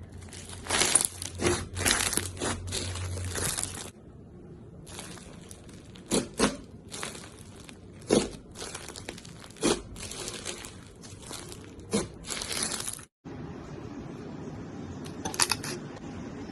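Slime being squeezed and pressed by hand, with crackling, crinkling and sharp pops in two long runs. After a brief cut about 13 seconds in, it goes quieter with only a few pops.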